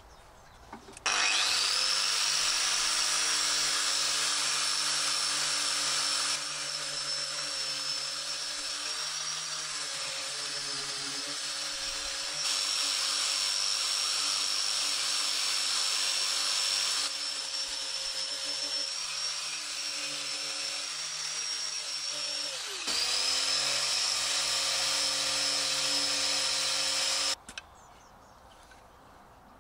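Angle grinder with a knotted wire cup brush spinning up about a second in and scrubbing rust off an old sledgehammer head: a steady high whine over scraping. It briefly winds down and comes straight back up, then stops near the end.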